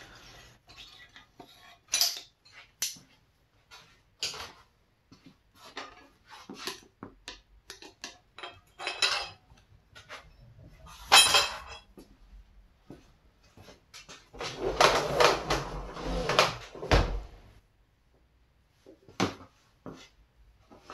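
Metal tire-changing tools clinking and clanking as they are taken off the wheel hub and handled: a scatter of sharp clinks, the loudest about eleven seconds in, then a few seconds of scraping and rustling.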